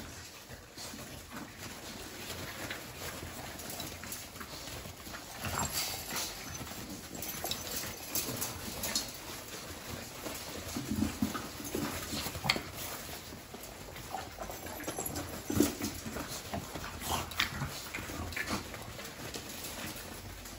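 A litter of French bulldog puppies scrambling around their mother on pen bedding: irregular paw scratching and rustling, with a few brief puppy whimpers.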